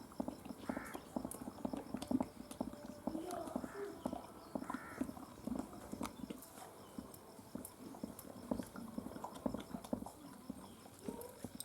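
A quick, irregular run of knocks and taps.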